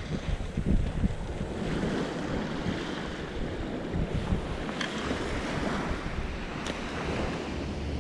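Small waves washing up onto a sand beach, with wind buffeting the microphone in a low, uneven rumble.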